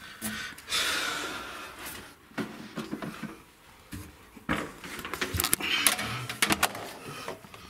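Handling noise while cables are being plugged into a power amplifier: rustling, with scattered clicks and knocks from connectors and leads. The knocks come more often in the second half.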